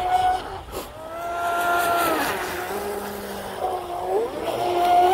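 RC boat's brushless electric motor (TP Power 4060 on 4S) whining under throttle. Its pitch rises, holds for about a second, drops away, then rises again about four seconds in.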